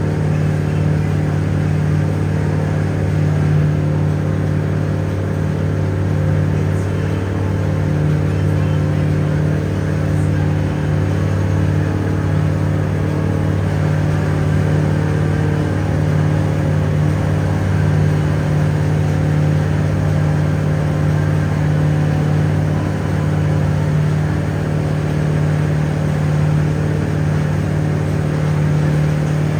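Riverboat engine running steadily at cruising speed, a constant low drone with no change in pitch or level.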